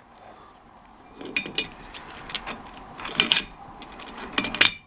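Steel rear-axle parts from an Eaton 2-speed differential clinking and knocking as they are handled and set down, in three short clusters with a brief metallic ring, the loudest near the end.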